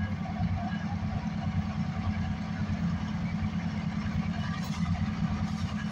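Diesel locomotive engine running steadily, a low even rumble.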